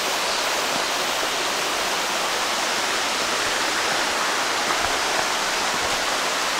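Steady, even rush of stream water flowing over rocks.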